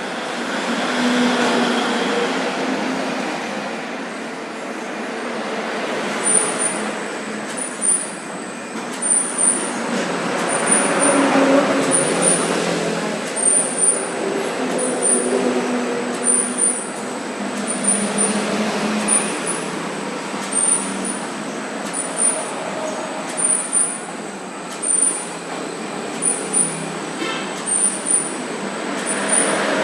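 Plastic bag cutting machine running, with a steady motor hum. From about six seconds in it makes a regular sharp click about once a second.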